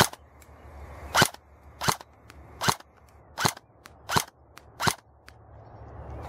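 Airsoft RPK replica firing single shots: seven sharp cracks, about one every three-quarters of a second.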